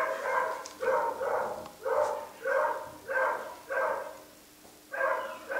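Beagle puppy barking in a string of about ten high yaps, roughly two a second, with a short pause about four seconds in.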